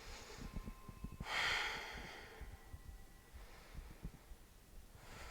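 A woman's single audible breath, a forceful exhale lasting about a second, starting about a second in, taken while holding a balancing yoga pose.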